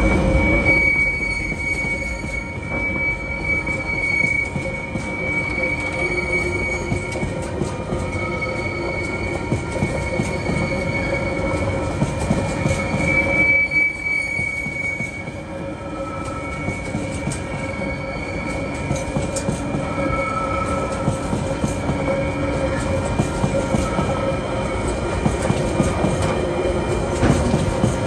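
Freight train wagons rolling past at low speed with a steady rumble and scattered wheel clacks. Steady high-pitched tones, the wheels squealing on the rails, run over the top throughout.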